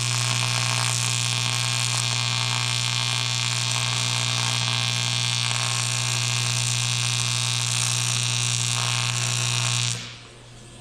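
AC TIG welding arc on aluminum: a steady electric buzz with a bright hiss. It holds for about ten seconds, then cuts off when the arc is broken.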